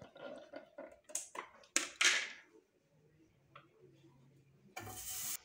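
Kitchen handling noises: a few knocks and scrapes of a cooking spatula and containers around a stainless steel frying pan on a gas stove. Near the end comes a half-second burst of hiss that stops abruptly.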